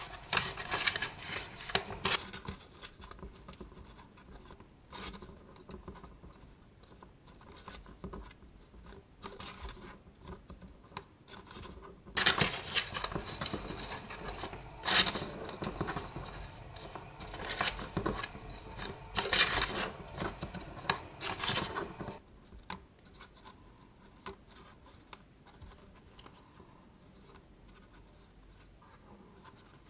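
Cardboard toilet-roll strips scratching and rubbing against each other and the cutting mat as they are handled. The sound comes in busy stretches, about the first two seconds and again from about twelve to twenty-two seconds in, with fainter handling in between and afterwards.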